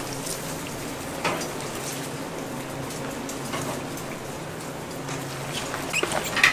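Salted napa cabbage being mixed with red pepper seasoning and chives by rubber-gloved hands in a large stainless steel bowl: wet squelching and rustling, with a few sharper clicks, the loudest near the end.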